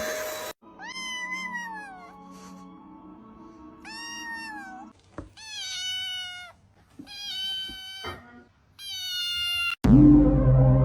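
A domestic cat meowing five times, each meow about a second long and mostly falling in pitch. A faint steady hum runs underneath. About ten seconds in, loud music starts suddenly.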